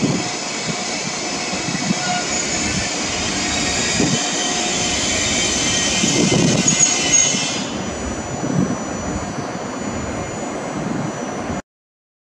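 FS E656 electric locomotive rolling slowly past, its motors and cooling blowers giving a steady whine over the low rumble and knocks of the wheels on the track. The high whine drops away about eight seconds in, and the sound cuts off suddenly just before the end.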